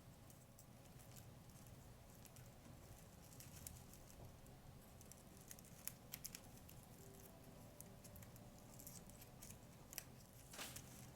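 Faint crinkling rustles and light clicks of dried flowers and stems being handled, with a few small clicks about six seconds in, a sharper click near ten seconds, and a short rustle just after it.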